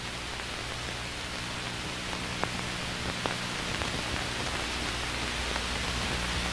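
Steady hiss over a low hum, with a couple of faint clicks partway through: the bare soundtrack noise of an old film transfer, with no narration or music.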